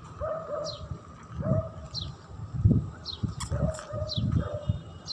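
Small birds chirping: short, high notes that fall in pitch, about once a second. Between them come short, lower calls that hook upward, and some low rumbling.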